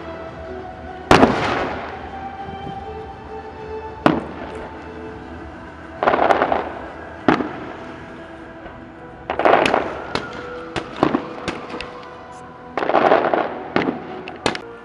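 Aerial firework shells bursting: a string of sharp bangs, several followed by a brief crackle, coming in clusters with short gaps between. Music plays steadily underneath.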